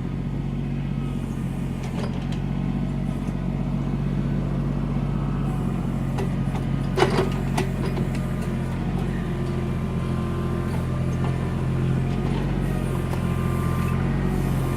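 Backhoe engine running steadily under work, with a few sharp knocks about halfway through.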